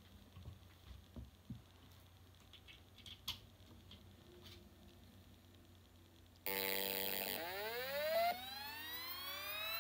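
Faint small clicks, then about six and a half seconds in a Hitachi Deskstar 7K2000 7200 RPM hard drive powers on with a sudden buzz. Its spindle motor's whine then rises steadily in pitch as the platters spin up.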